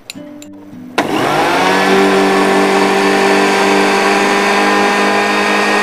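Small electric blender starting about a second in, its motor whining up to speed and then running at a steady pitch. It is grinding dry toasted grated coconut into a fine powder.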